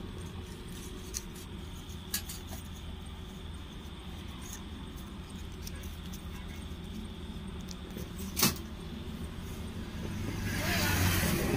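Steady low rumble of road traffic, with a few light clicks and one sharper click about eight seconds in; near the end a vehicle approaches and the noise grows louder.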